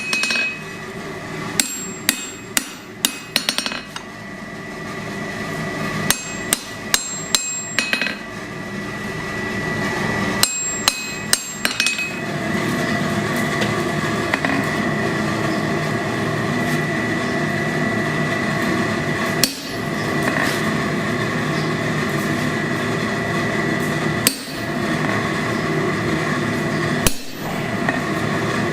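Hammer blows on steel at the anvil while forging tongs: quick runs of sharp, ringing strikes in the first twelve seconds, then a few single blows. Underneath is a steady rushing noise with a thin high tone, which gets louder about twelve seconds in.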